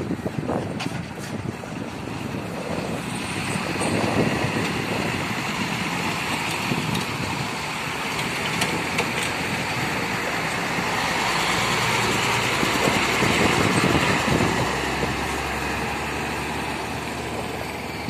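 Heavy diesel lorries, one a Tata, driving past on a highway one after another: engine and tyre noise swells about four seconds in and again, loudest, around twelve to fourteen seconds, then fades as they move away.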